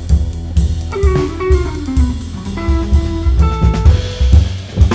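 Jazz band playing live: electric guitar, upright double bass and drum kit together, with a quick run of notes falling in pitch about a second in.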